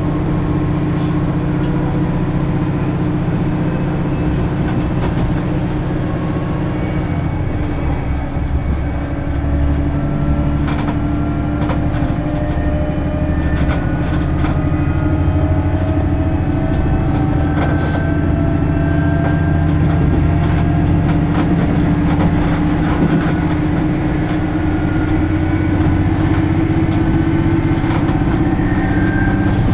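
Ride noise inside a diesel railcar under way: a steady engine and drivetrain drone that rises slowly in pitch as the train picks up speed, with thin rising whines above it and scattered clicks of the wheels over rail joints.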